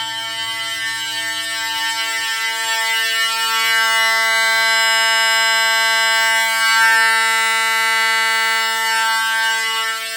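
Several fire alarm horns, System Sensor SpectrAlert Classic horn strobes among them, sounding together on continuous tone: a steady, unbroken alarm blare that swells a little in the middle.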